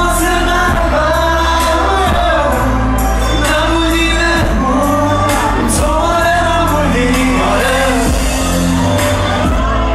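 Loud live pop music from a concert PA: a male singer's voice over a steady beat of drums and bass.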